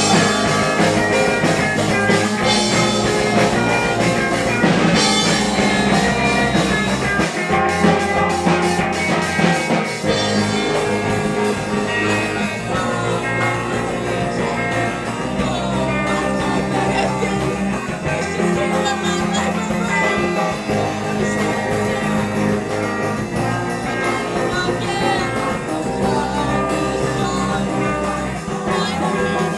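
Live rock band playing: electric guitars, bass and drums with cymbal crashes, and singing.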